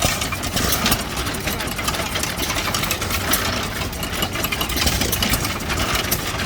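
Antique hit-and-miss stationary gas engines running, a dense, steady clatter of knocks.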